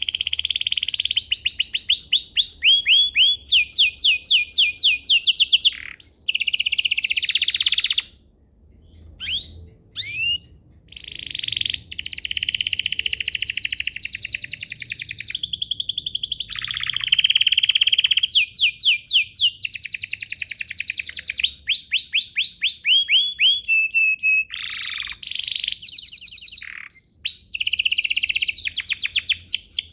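Domestic canary singing a long, rapid song of fast trills, runs of quick repeated high notes with only a brief pause about a third of the way in.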